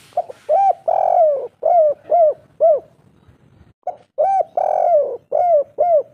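Spotted dove cooing two song phrases. Each phrase is a couple of short coos, one long drawn-out coo and then three short coos in quick succession, the three-note 'kuk 3' ending.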